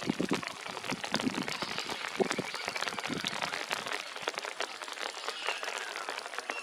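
A flock of birds calling at once: a dense, unbroken chatter of short chips and clicks, with a few arching calls near the end.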